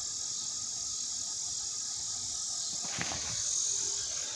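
Steady high-pitched insect chorus. A brief rustle of the phone being handled about three seconds in.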